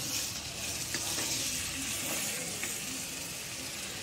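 Mutton and spice masala sizzling in a pan as it is stirred with a spoon, mixing in a little water just added for the gravy. A few light clicks from the spoon sound over the steady sizzle.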